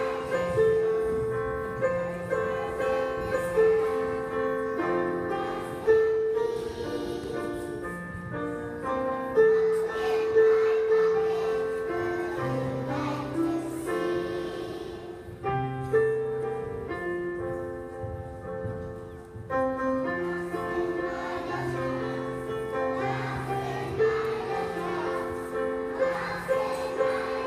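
Young kindergarten children singing together as a group over an instrumental accompaniment.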